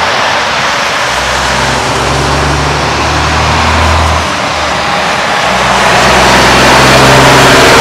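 Heavy road traffic: a big-rig diesel engine running and tyre noise going by, the engine's pitch shifting a few times.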